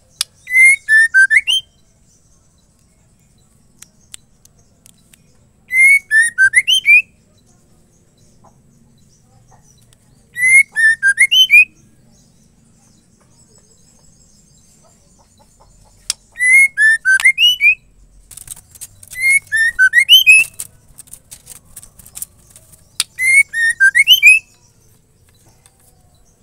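Female white-rumped shama calling: a short phrase of quick, whistled notes, each about a second long, repeated six times with gaps of a few seconds. This is the female's call to males. A brief run of faint clicks comes between two of the phrases near the middle.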